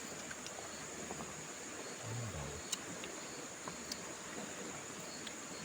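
Steady, high-pitched insect chorus, with a short low murmur of a voice about two seconds in and a few faint clicks.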